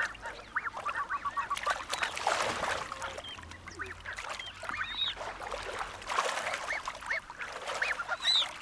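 Blue-winged geese and ruddy shelducks giving a rapid series of short honking alarm calls as an Ethiopian wolf goes after their goslings. There is splashing in the shallow water about two seconds in and again around six seconds.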